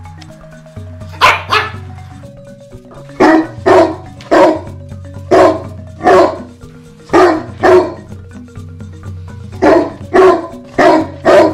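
A dog barking repeatedly: about a dozen loud, sharp barks, some in quick pairs, at uneven intervals. Steady background music plays underneath.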